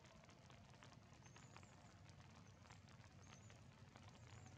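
Faint rain pattering, with scattered drop ticks and a few brief, faint high chirps.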